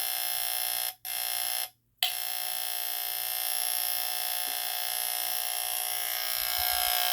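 Horn of a Vulcan SRO-4 line-cord smoke alarm sounding constantly as soon as it is plugged in: a steady tone with many overtones that cuts out briefly twice in the first two seconds. It is kind of like dying and should be much louder, a sign that the horn is weak or failing.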